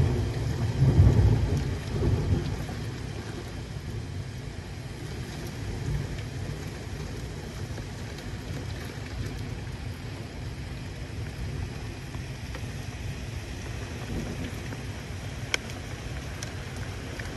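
Thunder rumbling loudly in the first couple of seconds, peaking about a second in, over steady rain, with a fainter rumble a few seconds later. A single sharp tick near the end.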